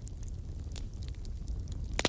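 Bonfire burning strongly: a steady low rumble of flames with sharp crackles and pops scattered through.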